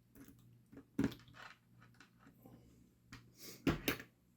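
Light handling noise of small parts and tools on a workbench, with a sharp knock about a second in and a louder double knock near the end.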